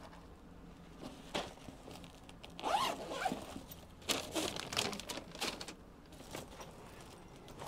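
A zipper pulled in several short rasps, in two bursts: one about three seconds in and a quicker run of strokes a second later.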